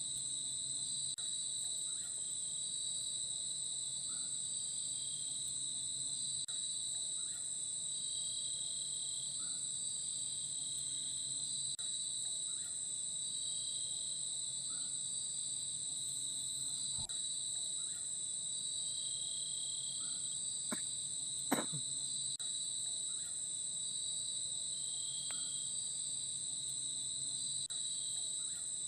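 Forest insects trilling in a steady, high-pitched chorus, one part of it pulsing in a regular rhythm. A couple of sharp clicks about three quarters of the way in.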